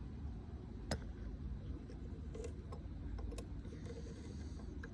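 Faint metallic ticks and clicks from a hand tap in a tap wrench being worked into a threaded bolt hole in an aluminium differential housing, over a low steady rumble. The sharpest click comes about a second in.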